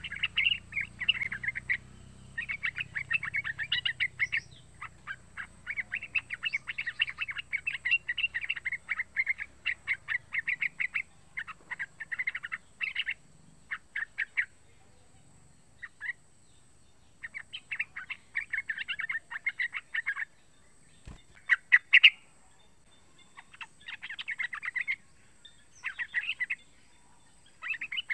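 Young yellow-vented bulbul calling in bursts of rapid chattering notes, each a few seconds long with short pauses between. A few sharp clicks about three-quarters of the way through are the loudest sounds.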